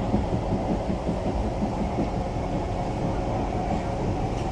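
Inside the motor car of an SMRT C651 train running on the line: a steady rumble of wheels on rail with a humming traction-motor tone over it.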